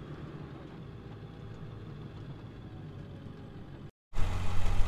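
4x4 tow truck's engine running low and steady, heard from inside the cab. After a sudden cut near the end, an engine idles much louder close by.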